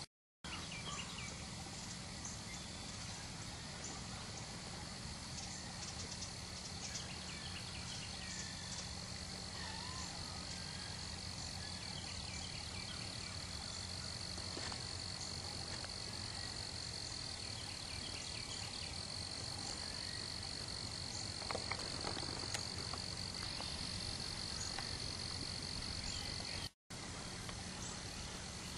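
Frogs calling in a chorus: short trills recur every few seconds over a steady, high-pitched drone. The sound drops out completely for a moment near the end.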